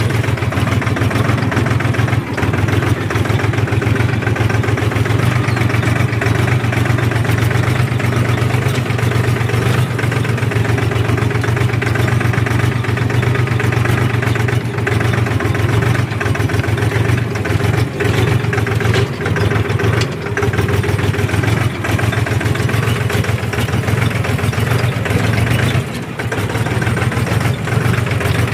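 Farm tractor engine running steadily under load while plowing a field, a continuous deep hum with a rough, rattly texture over it.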